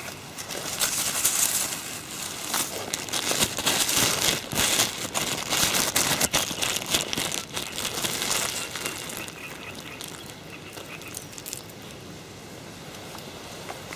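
Thin plastic bag crinkling and rustling as it is handled and opened to get at the semolina bait inside, busiest through the first two-thirds, then quieter.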